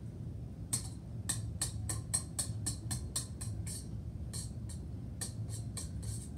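Wire whisk beating a mixture of oil, eggs and milk in a stainless steel mixing bowl: quick repeated clicks of the wires against the bowl, about six a second, pausing briefly about halfway through. Background music plays underneath.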